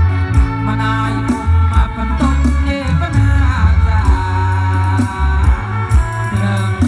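A recorded song with singing and guitar over a heavy bass line, played loud through a large outdoor PA sound system that is being sound-tested.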